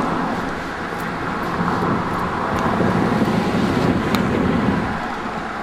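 Road traffic: a car passing on the street, its tyre and engine noise swelling and then fading toward the end.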